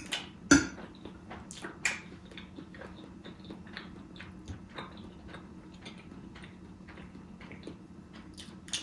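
Close-miked chewing of spaghetti: wet mouth clicks and smacks, the loudest about half a second and two seconds in, over a faint steady hum.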